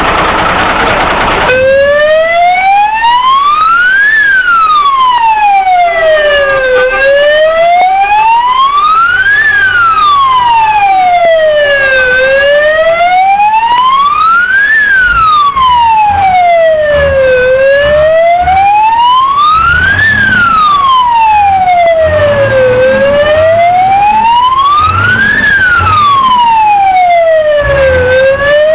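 Fire engine siren sounding a slow wail, rising and falling in pitch with one full cycle about every five seconds. A low rumble runs under it. It starts about a second and a half in, after a short burst of rushing noise.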